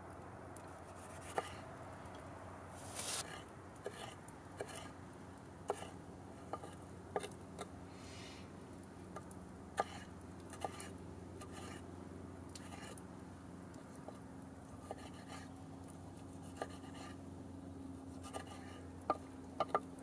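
Kitchen knife dicing a tomato on a wooden cutting board: faint, irregular taps of the blade against the board, with a short scraping noise about three seconds in.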